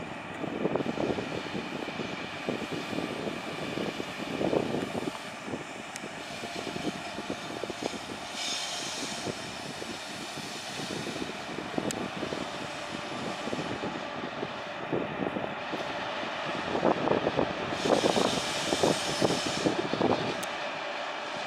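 Electric freight locomotives working a short train up a steep mountain grade with banking locomotives pushing. The locomotives make a steady mechanical drone with a faint high whine, swelling louder now and then.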